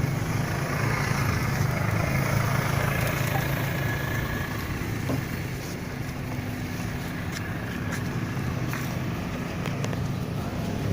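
Motor vehicle running steadily: a low, even engine drone with road noise and a few faint clicks.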